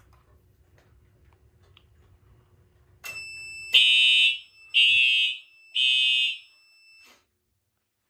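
Simplex TrueAlert fire alarm horns sound three short, loud blasts about a second apart over a steady high tone. This is the audible walk test's three-pulse signal for the smoke detector on zone 3.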